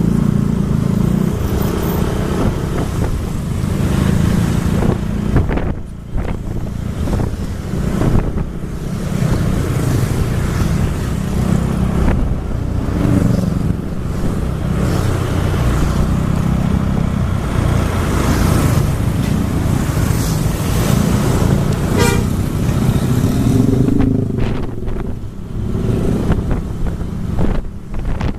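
Traffic noise heard from a moving motorcycle: engine and road rumble with wind on the microphone, and vehicle horns tooting now and then.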